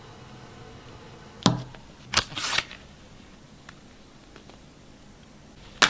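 Handling noises from unboxing a smartphone and its packaging: a knock, then a click with a brief scraping rustle, and a sharp click near the end.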